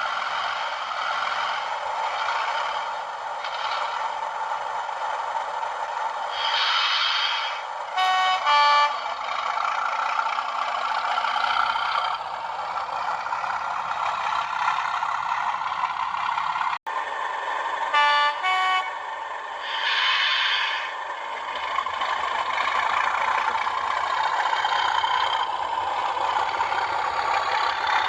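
Model Class 37 diesel locomotive's Hornby TTS sound decoder playing a steady diesel engine running sound through a small, tinny speaker. A two-tone horn sounds twice, about ten seconds apart.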